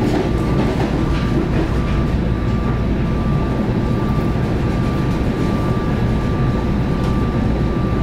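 Passenger train running along the track, heard from inside the car: a steady rumble of wheels on rail with a thin constant whine above it.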